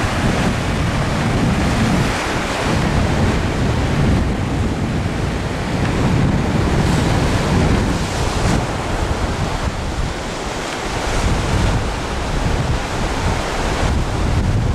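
Ocean surf washing on a sandy beach, with wind buffeting the camcorder's microphone in a steady low rumble.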